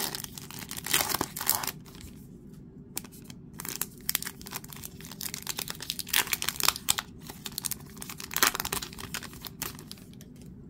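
Foil wrapper of a trading-card pack being torn open and crinkled by hand, in irregular bursts of rustling and tearing that die down near the end.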